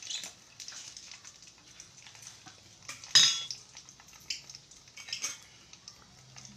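Metal spoon clinking against a stainless steel bowl of beaten egg and an aluminium drink can, a few scattered clinks with one much louder clink about three seconds in.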